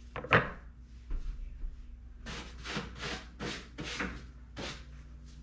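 Knife cutting cooked chicken and striking the cutting board: one sharp knock about a third of a second in, then about six quick slicing strokes.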